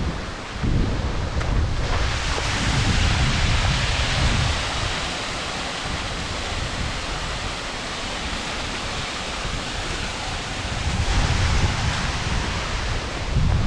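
Waterfall water rushing steadily, louder from about two seconds in and easing somewhat near the end, with wind buffeting the microphone in low rumbling gusts.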